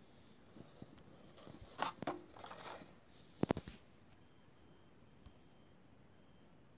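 Plastic blister packs on cardboard-carded Hot Wheels cars being handled, crinkling and clicking in a few short bursts; the loudest is a pair of sharp clicks about three and a half seconds in.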